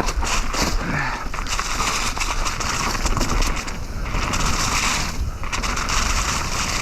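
Mountain bike riding fast down a dirt trail: tyres rolling and crunching over dirt, with frequent rattles and knocks from the bike, and wind buffeting the microphone as a low rumble.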